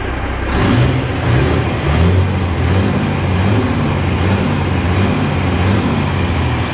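Freightliner Columbia truck's diesel engine revved up from idle, then held and blipped at higher revs, the pitch rising and falling over and over, as its new turbocharger builds boost.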